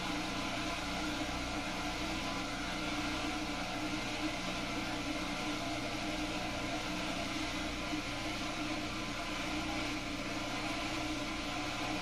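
Dishwasher running: a steady hum under an even hiss, unchanging throughout.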